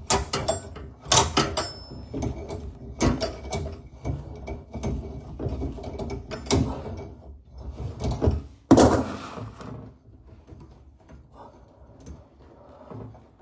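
Irregular knocks, clicks and scrapes of hands and tools on a bathroom sink and its plumbing as the drop-in sink is being worked loose and pulled out, with a louder scrape about nine seconds in.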